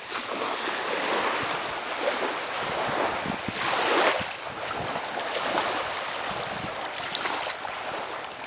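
Small waves washing onto a sandy beach, mixed with wind on the microphone, with a louder wash of surf about four seconds in.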